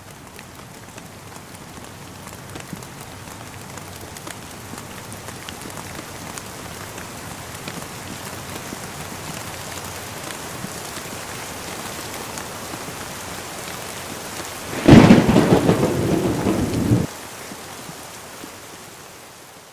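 Steady rain falling, slowly growing louder, with a loud clap of thunder about fifteen seconds in that stops abruptly some two seconds later. The rain fades away near the end.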